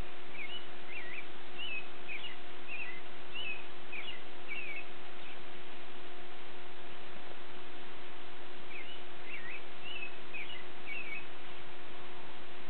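A songbird singing two runs of short warbling notes, the first lasting about five seconds, the second starting about nine seconds in. A steady low hum and hiss run underneath.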